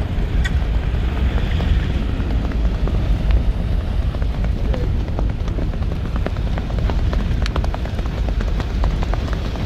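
Horse's hooves clicking rapidly in the rewal ambling gait, over a heavy, steady rumble of wind and a moving vehicle.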